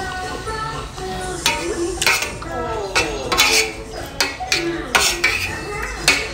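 Steel spoon scraping and clinking against a metal bowl while scooping rice pudding, with several sharp clinks spread through the moment. Music plays underneath.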